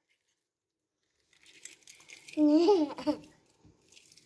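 A young child's short wordless vocal sound with a wavering pitch, about two and a half seconds in, over faint rustling and handling noise; the first second or so is dead silent.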